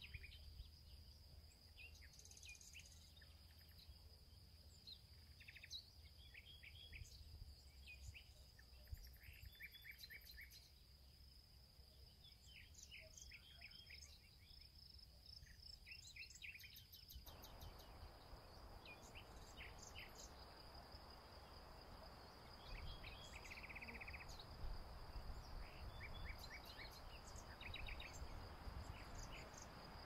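Faint dusk chorus: insects keep up one steady high trill while birds give scattered short chirps. A low wind rumble sits under it all. About halfway through, a faint even hiss comes in.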